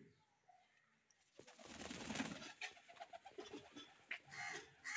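A flock of fancy pigeons, fantails among them, feeding on the ground. A brief rush of wing flaps comes about a second and a half in, and soft cooing follows near the end.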